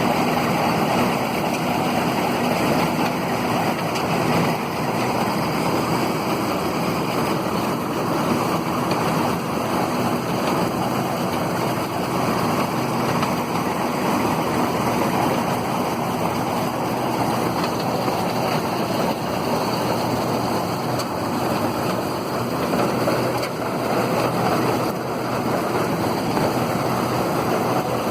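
New Holland TF 44 combine harvester running steadily under load while harvesting rice, its diesel engine and threshing machinery making a dense, even mechanical noise.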